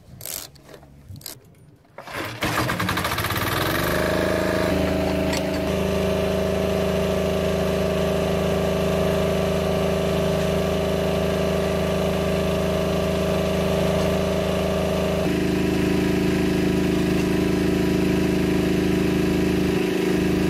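A few ratchet-wrench clicks as bolts are tightened. About two seconds in, the Hatz diesel engine of the hydraulic power pack starts, rises in pitch for a couple of seconds and settles into a loud, steady run. Its note shifts abruptly about fifteen seconds in.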